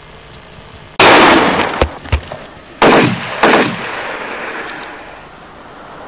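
Several loud gunshots, the first about a second in and more over the next two and a half seconds, each trailing off in a rolling echo.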